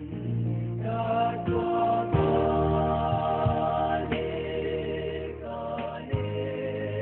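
Gospel song: a choir singing over a strummed guitar and bass with a steady beat.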